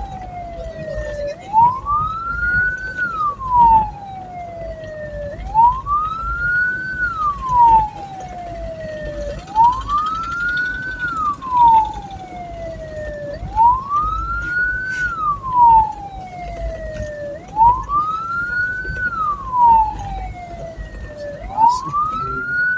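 A hearse siren wailing in a slow, steady cycle, repeating about every four seconds: each cycle rises quickly in pitch, then falls away more slowly. Low vehicle rumble runs underneath.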